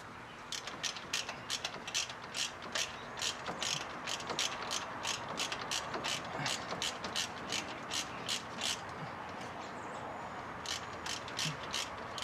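Hand socket ratchet clicking in steady back-and-forth strokes, about three clicks a second, as a fastener is turned by hand; it pauses briefly near the end and then resumes.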